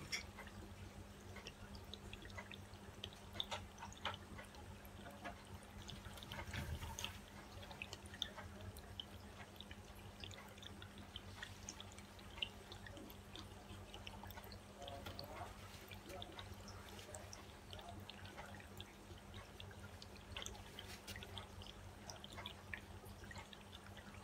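Palette knife spreading acrylic paint on a canvas: faint, scattered small ticks and scrapes over a steady low hum.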